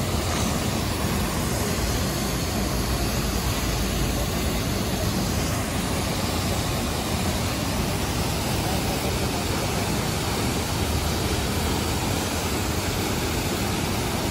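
Water pouring in a curtain off the edge of a road bridge and splashing into the water below: a steady, unbroken rushing noise.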